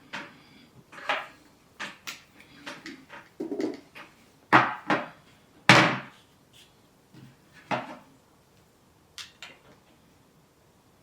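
Clicks and knocks of hard plastic parts being handled as a DJI Osmo Mobile 6 smartphone gimbal and its magnetic phone clamp are fitted together. There are about a dozen sharp knocks, irregularly spaced, and the two loudest come about four and a half and nearly six seconds in.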